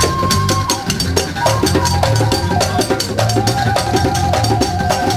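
Band music: a drum kit plays a busy, steady beat over a bass line that changes note, with a melody instrument holding long notes above.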